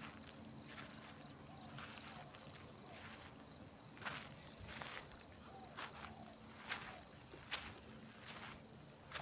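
Steady high-pitched chirring of insects, with scattered soft footsteps on soil and grass.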